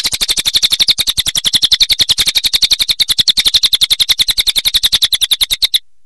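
Crested jay (cililin) calling in a long, fast, even rattle of more than ten clicks a second, high in pitch. It breaks off abruptly near the end.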